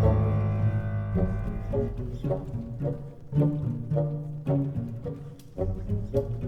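Instrumental music without vocals: a held chord dies away, then low plucked string notes follow at an even pace, about two a second.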